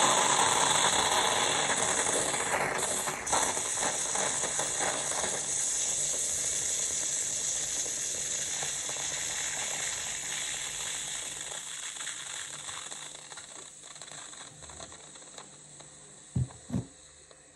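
Bosch Tassimo pod coffee machine brewing: its pump runs with a steady rattling hiss that slowly fades. Two short low knocks come near the end.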